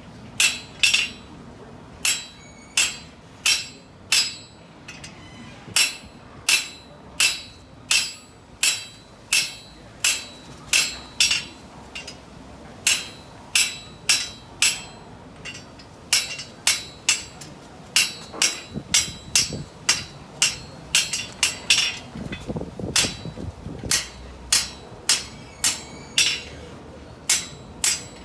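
Blacksmith's hand hammer striking hot steel on an anvil while forging a V-block bottom swage, a steady series of blows about one to two a second, some in quick pairs, each with a short bright metallic ring.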